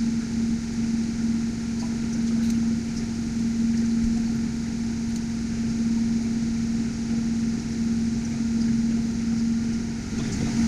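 TIG welding arc on mild steel, a steady hiss over a steady low hum, as filler rod is fed in to fill and build up a hole.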